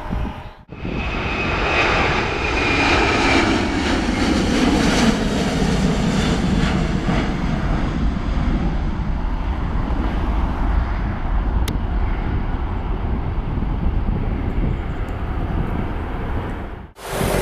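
An Airbus A330-300's twin jet engines climbing out at takeoff power. A high fan whine and a deep roar slide lower in pitch as the airliner passes, then settle into a steady, receding roar.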